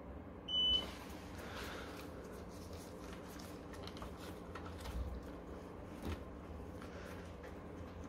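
A short high-pitched electronic beep, followed by scattered light clicks and a couple of soft knocks over a low steady hum.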